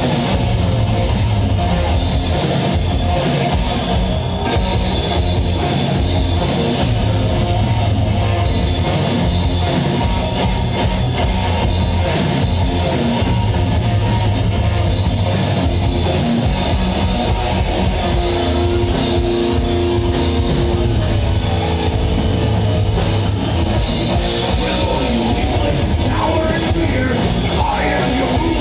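Live heavy metal band playing an instrumental passage: distorted electric guitars, bass and a drum kit, with the cymbals dropping out and coming back several times.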